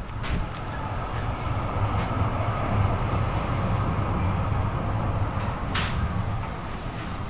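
Steady vehicle noise with a low rumble that swells a little through the middle, with a few faint clicks.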